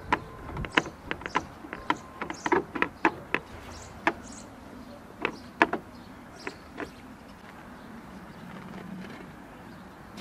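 Hand pressing and patting a sheet of dough down over an upturned pot on a metal tray, with irregular sharp clicks and taps that come thick and fast for the first few seconds, then thin out to a few scattered ones before stopping.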